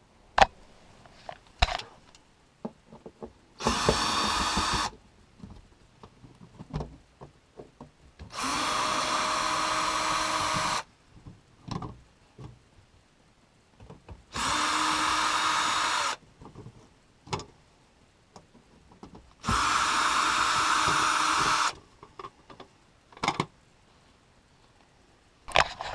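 A cordless power drill runs in four short, steady bursts, with clicks and knocks of handling between them.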